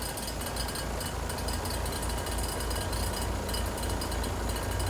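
Heat pump compressor running with a low, pulsing hum: the abnormal compressor noise that returns as the low-side pressure drops toward 50 psi, which the technician suspects comes from a low refrigerant charge or a leak.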